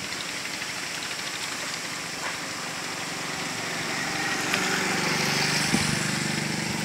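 An engine running at a steady low pitch, growing gradually louder from about halfway through, over outdoor background noise.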